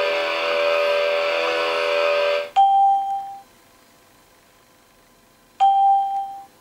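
A sustained chord of music cuts off abruptly about two and a half seconds in, followed by two identical bell-like electronic chimes about three seconds apart, each a single clear ding that rings out in under a second.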